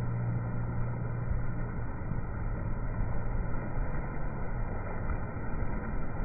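Muffled, steady rush of sea surf and wind on the microphone, with a low hum that fades about halfway through.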